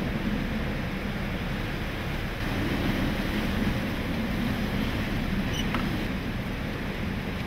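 Typhoon wind blowing hard: a steady rushing noise, heaviest in the low end.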